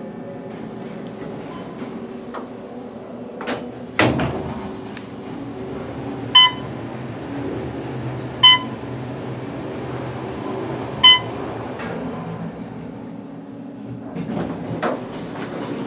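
Otis bottom-drive traction elevator car travelling, a steady hum with a faint high whine, after a thud about four seconds in. Three short electronic floor-passing beeps sound a couple of seconds apart, and a burst of clicks and rattles comes near the end.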